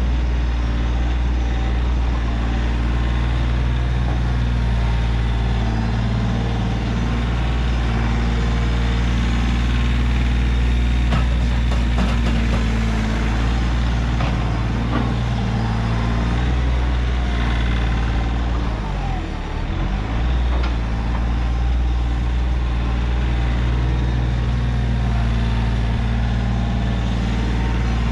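Kioti CK3510 compact tractor's diesel engine running steadily during front-loader work, with a few knocks midway. The engine note dips briefly about two-thirds of the way through, as it takes load.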